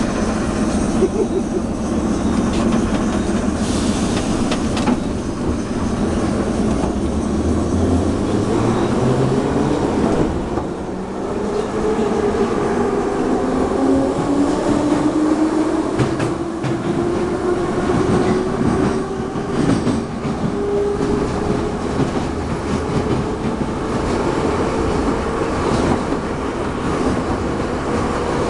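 Moscow Metro train pulling out of a station and accelerating into the tunnel, heard from inside the car. The traction motors' whine rises steadily in pitch over the running noise of the train, levelling off near the end.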